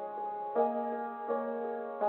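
Slow instrumental keyboard music: sustained chords, with new notes struck about every 0.7 seconds.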